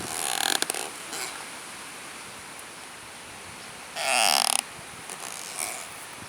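Tree creaking in the wind: a few short creaks in the first second, a louder drawn-out creak about four seconds in, and a brief one near the end.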